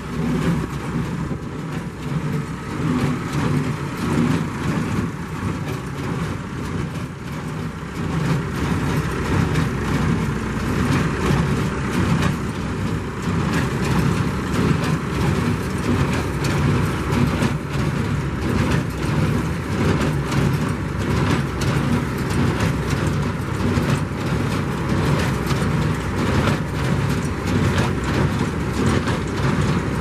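Tractor engine running steadily and driving a Claas Markant 65 conventional baler through its PTO shaft, with a fast, even mechanical clatter over the engine note. It gets a little louder about eight seconds in.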